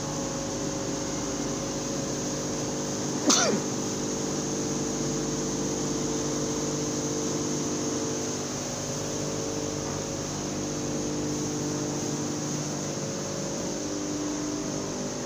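Grain-mill machinery running: a steady hum made of several fixed tones, with a faint hiss above. One short, sharp loud sound cuts through it about three seconds in.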